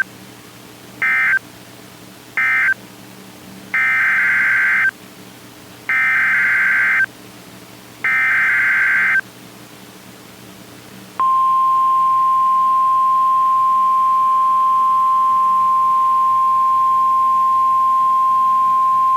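NOAA Weather Radio alert signalling. Three short SAME end-of-message data bursts close one warning, then three longer SAME header data bursts open the next. About eleven seconds in, the steady 1050 Hz warning alarm tone begins and holds.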